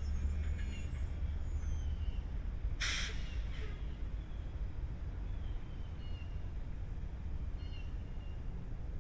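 School bus engine idling with a steady low rumble. About three seconds in there is a short hiss of released air. Birds call faintly in the background.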